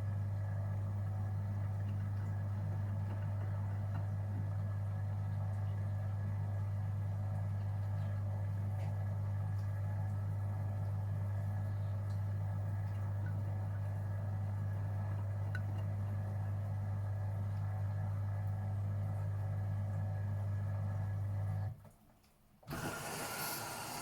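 A Gorenje UseLogic 65165 washing machine running with a steady low hum. The hum cuts off about 22 seconds in, and after a brief silence a steady hiss starts near the end.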